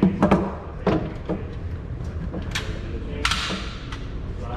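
Several gunshots going off at irregular intervals across a shooting range, sharp and thudding, with a short tail of reverberation after the louder ones.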